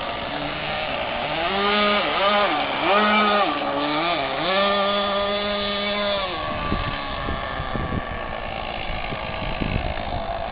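The twin 380-size electric motors of an RC hydroplane boat whine over the water, the pitch dipping and rising several times with throttle changes and then holding high for about two seconds. Then the whine drops away, leaving a steady hiss with low rumbles.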